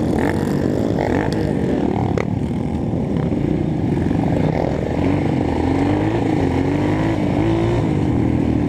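Single-cylinder four-stroke trail motorcycle engine running while riding along a dirt road, steady and loud, its pitch wavering up and down with the throttle from about five seconds in.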